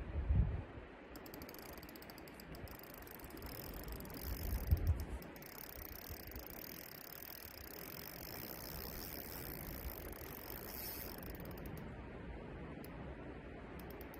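Spinning reel on a bolognese rod ticking steadily as line is wound in while a hooked fish is played. Two dull low thumps stand out, one at the start and one about five seconds in.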